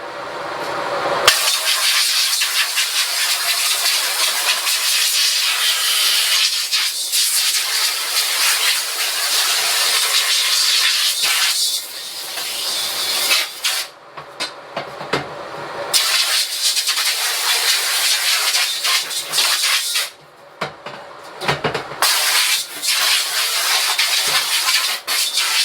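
Water jet from a battery-powered portable pressure washer spraying a screen-printing screen, hissing steadily as it washes out the emulsion. The spray starts about a second in and stops briefly a few times. The washer's pump can't really be heard over the sound of the water.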